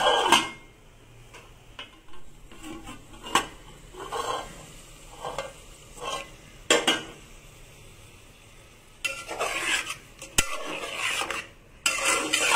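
A metal lid clanks onto a cooking pot, followed by a few separate light knocks as the lid is handled and lifted off. Near the end a spatula scrapes and stirs chicken pieces around the metal pot.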